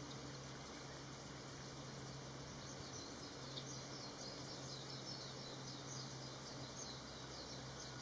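Quiet outdoor background with a steady low hum and, through the middle, a faint run of quick high chirps from a small bird or insect.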